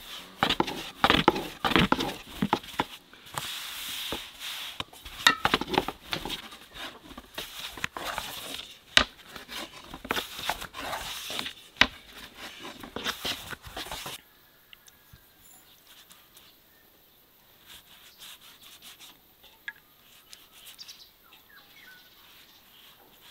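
Long thin wooden rolling pin working a sheet of dough on a wooden board: repeated rolling and rubbing strokes with sharp knocks of the pin against the board. It stops about 14 seconds in, leaving only faint soft strokes, a pastry brush spreading melted butter on the dough.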